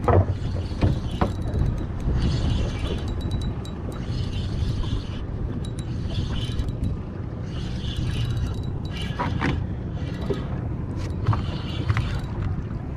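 Outboard motor of a small fishing boat running steadily at low speed, with a rushing hiss that swells and fades every second or two and a few sharp knocks.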